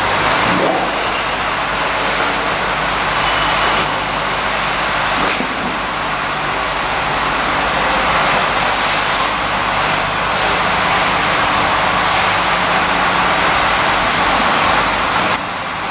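Curtain-wall end milling machine for aluminium profiles running: a loud, steady noise over a low motor hum, with a short dip near the end.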